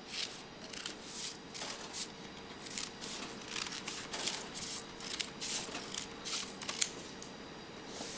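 Scissors cutting newspaper into strips: an irregular run of crisp snips, roughly two a second, with the rustle of the paper.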